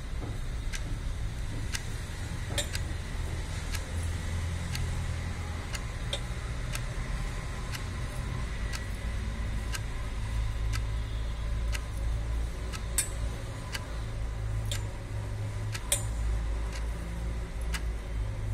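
A regular light ticking, about three ticks every two seconds, over a steady low hum.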